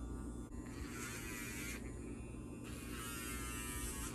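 Cordless LuckyTail dog nail grinder, cap off and on high speed, whirring against a dog's nail in two spells: a short one about a second in and a longer one from a little past the middle onward. A low steady hum runs underneath.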